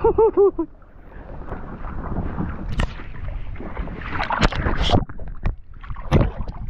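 A short bouncing vocal sound, like a laugh, in the first half-second. Then wind and water noise on a small fishing boat, broken by several sharp knocks and clatters of gear being handled on deck.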